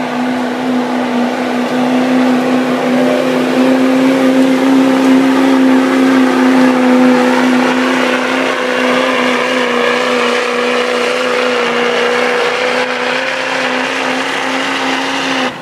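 Diesel pickup truck engine at full throttle under heavy load, dragging a weight-transfer pulling sled, with a steady high drone that barely changes pitch. It cuts off suddenly at the very end as the throttle is released.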